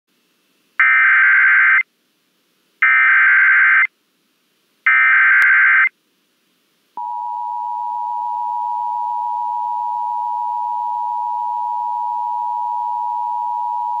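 NOAA Weather Radio Emergency Alert System tones: three short bursts of buzzing digital SAME header data about a second apart, then about seven seconds in the steady single-pitch warning alarm tone begins. Together they signal the start of an emergency alert, here a severe thunderstorm warning.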